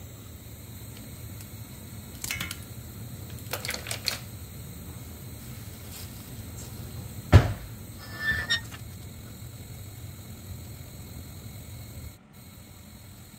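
Silicone spatula stirring coconut milk in a stainless steel pot on a gas hob: a few soft scrapes and clatters of the spatula against the pot, with one sharp knock about seven seconds in, over a steady low rumble.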